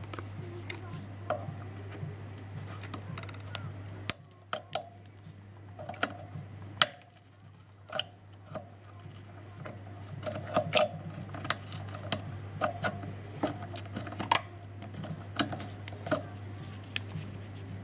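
Irregular clicks, taps and scrapes of small hand tools working on an amplifier circuit board, while bulging capacitors are being removed, over a steady low hum.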